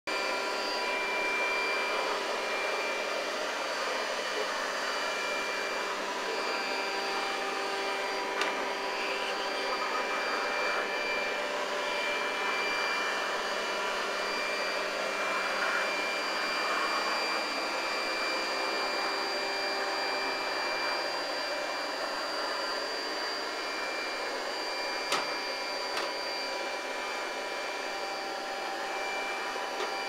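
Robot vacuum cleaner running steadily: an even whirring of its motor and brushes with several steady high-pitched whines, broken by a few brief sharp clicks.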